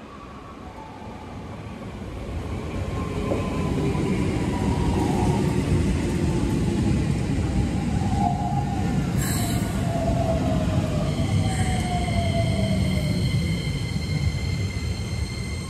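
Keikyu New 1000 series electric train pulling into the station and braking: wheels rumbling on the rails, louder as it draws alongside, with a motor whine that slides down in pitch as it slows. A steady high squeal sets in about 11 seconds in as it nears a stop.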